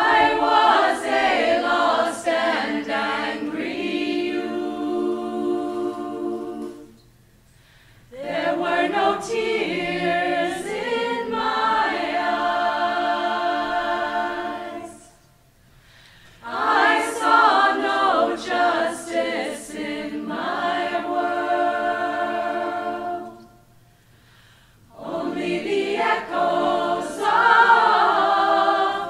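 Choir singing a cappella in four long phrases, with a brief pause for breath between each.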